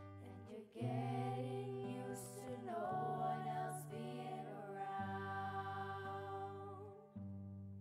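A slow, lullaby-like song: a single voice sings a wavering melody over sustained accompaniment chords, with the bass note changing about every two seconds.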